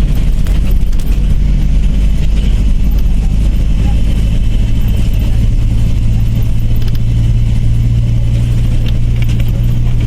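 Bus engine and road noise, a steady low drone.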